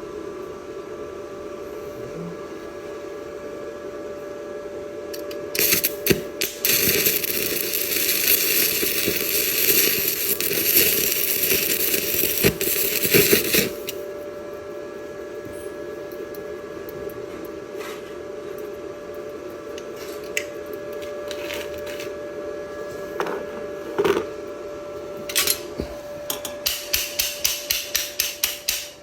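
Electric welding arc crackling and hissing steadily for about eight seconds as a bead is laid on a steel bracket, over a steady hum. Near the end comes a quick run of about a dozen sharp metal taps.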